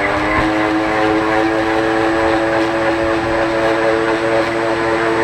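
Electric vacuum pump switched on, coming up to speed within about half a second and then running with a steady hum as it pulls a vacuum on the oven chamber.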